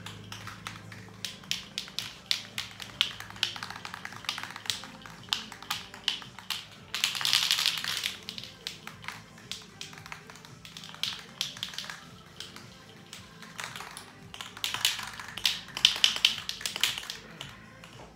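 Hand scuffing of primed steel grab rails with an abrasive before painting: irregular flurries of quick, sharp scratches and clicks, with a denser rasping stretch about seven seconds in and another near the end. Music plays in the background.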